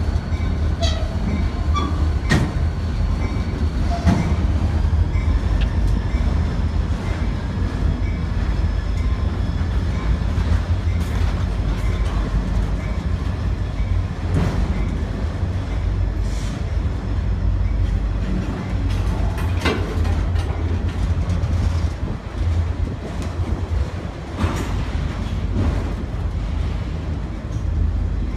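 Train rolling by along a street, a steady low rumble with sharp clanks from the wheels and cars every few seconds.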